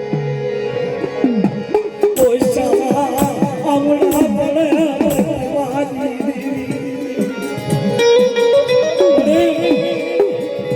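Indian devotional folk music: drum strokes keep a rhythm under a wavering, ornamented melody line.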